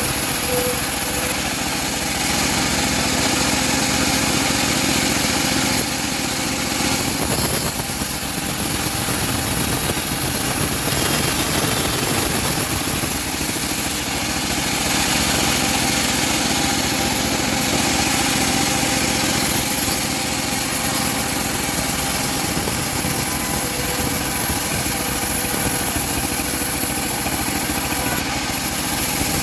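Homemade bandsaw running steadily while sawing teak wood.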